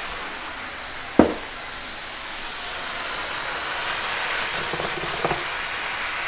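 Mushrooms sizzling and steaming in a hot stainless frying pan just splashed with white wine, the hiss growing louder from about three seconds in as a wooden spoon stirs them. A single sharp knock about a second in, and a few light knocks of the spoon against the pan near the end.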